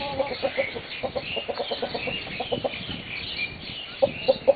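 Chickens clucking in a pen: a quick run of short clucks about a second in, and another run near the end, with faint high chirping above.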